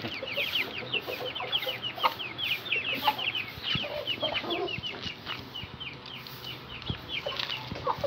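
Rapid high peeping of small birds, many short downward-sliding chirps about five a second that thin out near the end, with a few lower chicken clucks about two and four seconds in.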